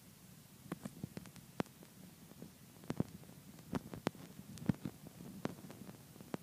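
Handling noise from a handheld camera: irregular light clicks and taps, about a dozen, over a faint low hum.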